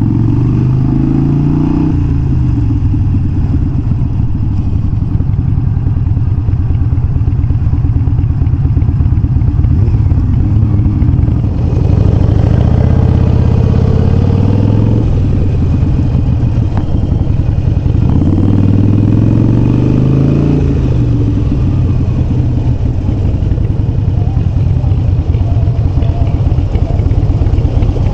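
Harley-Davidson Iron 883 Sportster's air-cooled V-twin running through Vance & Hines Shortshots exhaust while under way. Its pitch rises and falls several times as the throttle is opened and closed.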